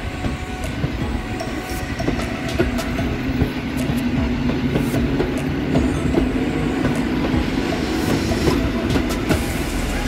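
Koleje Śląskie EN57KM electric multiple unit running past, a steady low hum under repeated clicks of its wheels over the rail joints.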